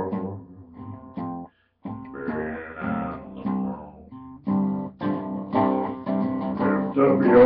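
Solo acoustic guitar playing, plucked notes and chords ringing, breaking off to silence for a moment about a second and a half in before picking up again.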